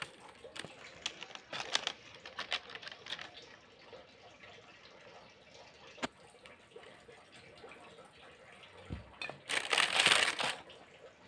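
Aerosol cans and loose plastic wrapping handled in a cardboard box: crinkling with light clicks and taps, a sharp click midway, then a louder rustle of about a second near the end as a hand rummages in the box.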